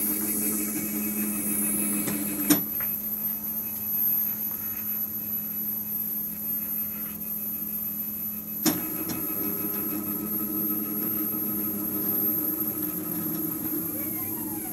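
Homemade CNC router's stepper-driven axes running a Mach3 job: a steady motor whine whose pitch and pattern change as the moves change, with a sharp click about two and a half seconds in and another near nine seconds. It makes a racket, which the builder puts down to the frame being unfinished and only clamped to the table.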